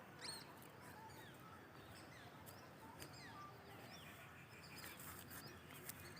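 Faint, scattered chirps of small birds over a quiet background.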